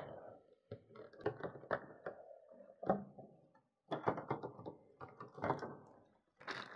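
Stiff clear plastic blister packaging being handled and pulled apart: irregular clicks, taps and crinkles, with two short pauses.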